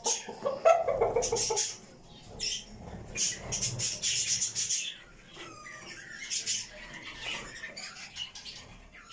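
Budgerigars squawking and chattering in quick, harsh, scratchy bursts, busiest in the first half and thinning toward the end.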